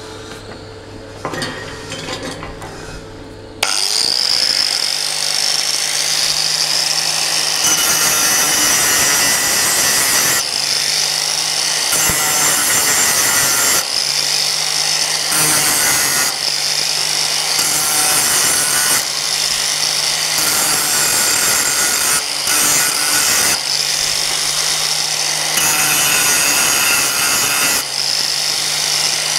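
Angle grinder switched on about three and a half seconds in and spinning up to a steady high whine. It then grinds steel in repeated passes, the rasping swelling and easing every few seconds as the disc is pressed onto the work and eased off.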